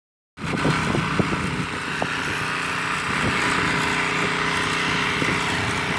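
Small petrol walk-behind tiller running steadily while it churns garden soil, with a few sharp knocks mixed into the engine sound.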